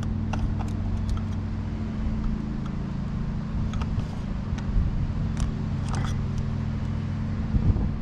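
Scattered light clicks and taps of a plastic cartridge oil filter element and its housing cap being handled, over a steady low hum.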